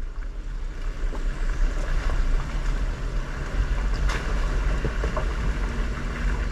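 Steady low rumbling noise with a faint hiss above it, and a faint sharp tick about four seconds in.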